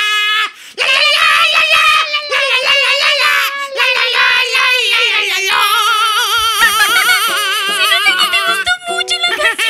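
Music: high voices singing a song with vibrato over instrumental backing.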